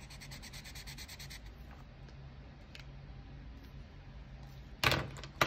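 Red Expo marker scribbling on paper in quick, evenly spaced back-and-forth strokes for about a second and a half while colouring in, then two loud sharp knocks near the end.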